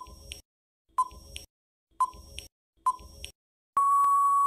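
Countdown timer sound effect: four short beeps about a second apart, then one longer steady beep near the end signalling that time is up.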